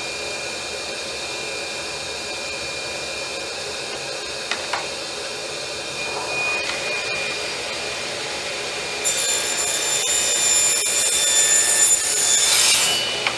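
Ridgid R4520 10-inch table saw running steadily, then from about nine seconds in cutting through a pine board: the sound turns brighter and louder with a high whine for about four seconds, then drops back to a free run just before the end.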